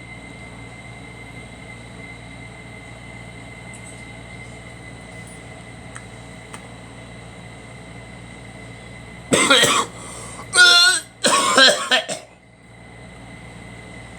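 A person coughing: three harsh coughs in quick succession about nine seconds in, the middle one voiced with a wavering pitch, over a steady background hum.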